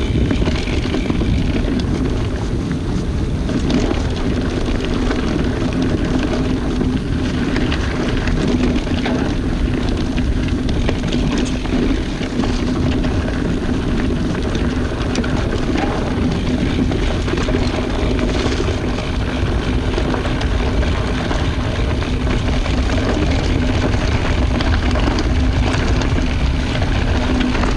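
Mountain bike descending a leaf-covered dirt singletrack: a steady rush of tyres and wind noise with a constant low hum.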